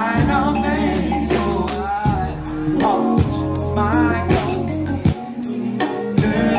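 Live R&B music with a singer's voice gliding and wavering over bass, drums and shaker-like percussion.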